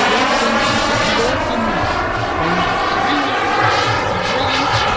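Turbine jet engines of a large RC model airliner running steadily in flight overhead: a loud, continuous jet rush whose tone slowly shifts and phases as the model passes.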